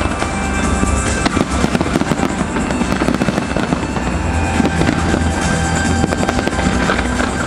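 A fireworks display, with shells bursting and a dense, continuous crackle of many small pops, over music playing beneath.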